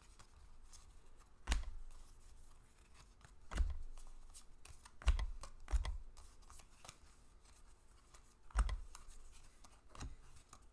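Baseball trading cards being handled and sorted: a faint rustle of sliding card stock, broken by about six sharp taps spread unevenly as cards are put down one at a time.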